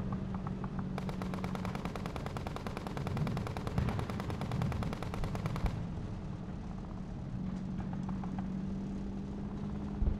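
Rapid machine-gun fire: one long burst lasting about five seconds, starting about a second in, with a few lighter scattered shots around it over a low steady hum.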